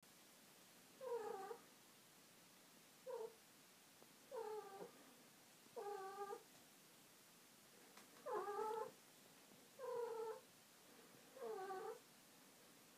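Female calico cat in heat, calling with seven short yowls about a second and a half apart.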